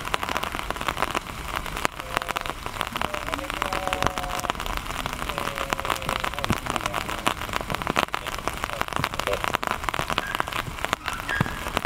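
Steady rain falling, with many small drop ticks close by.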